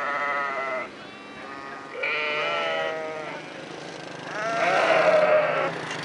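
Sheep bleating: three drawn-out bleats, with a faint one between the first two, and the last and loudest starting about four and a half seconds in.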